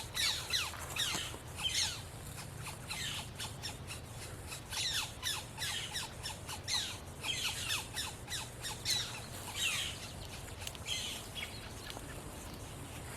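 Yellow-shafted flicker nestlings calling from the nest cavity: many short, high calls, each sliding down in pitch, overlapping in quick succession.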